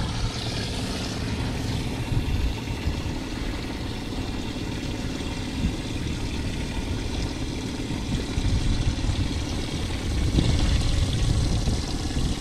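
Boat motor idling steadily, a low, even rumble.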